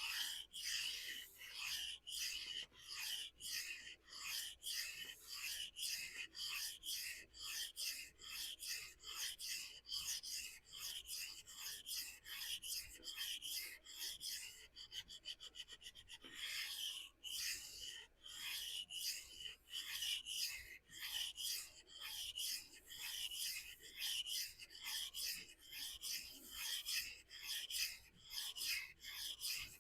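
Knife blade of CPM-S30V steel stroked back and forth over a 400-grit vitrified diamond stone, a rhythmic rasping scrape of quick, even strokes with a short break near the middle. This is coarse-grit freehand grinding that removes steel to even out a severely asymmetric edge bevel.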